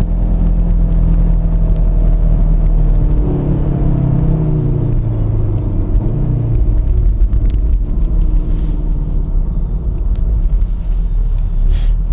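Volkswagen Golf 7 R's turbocharged four-cylinder engine running with steady road rumble while driving; the engine note drops in pitch about four to six seconds in.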